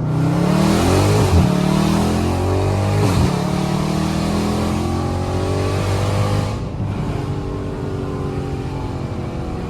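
Dodge Charger Scat Pack's 392 Hemi V8 with catless mid pipes, accelerating hard: the engine note climbs, drops sharply at two upshifts about one and three seconds in, and climbs again. A little past six seconds it eases off to a quieter, steady drone.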